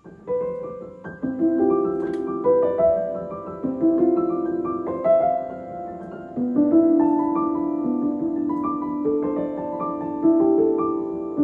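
Background piano music: a slow melody of struck notes that ring on and fade.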